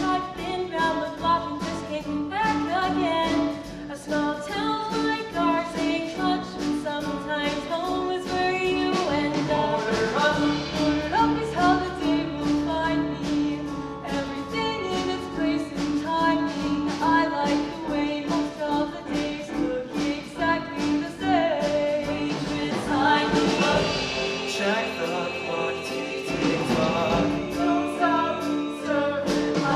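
A choir singing a show tune with instrumental accompaniment.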